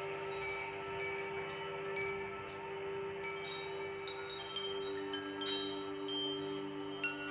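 Meditative background music: wind chimes tinkling in scattered quick strikes over a steady held drone, with a second, lower drone note joining about halfway through.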